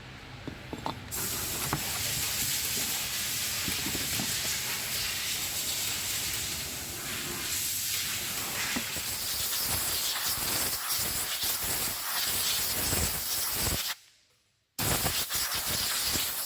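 Steady, loud hiss of a pressurised spray, starting about a second in, breaking off abruptly for under a second near the end, then resuming.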